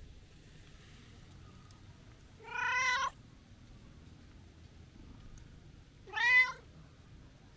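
A brown tabby-and-white cat meowing twice: a longer meow about two and a half seconds in, and a shorter, louder one about six seconds in.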